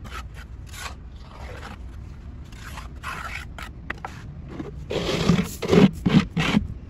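Gravel being scooped with a plastic scoop and tipped into a pit in the ground: scraping and rattling of stones. The strokes come in lighter scrapes at first, then four or five louder ones in quick succession near the end.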